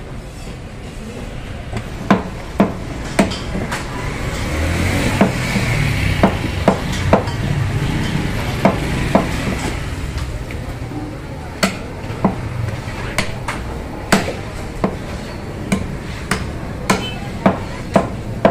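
Butcher's cleaver chopping beef on a round wooden chopping block: sharp, irregular whacks, often in pairs, starting about two seconds in.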